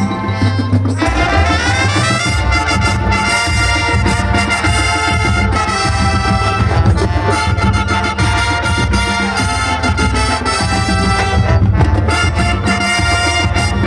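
High school marching band playing: brass section with trumpets and trombones over low sustained bass notes and percussion, with a rising run about a second in.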